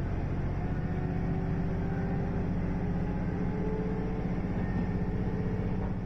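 Diesel railcar's engine and running noise heard from inside the cabin: a steady low engine hum with a faint tone slowly rising in pitch as the train runs.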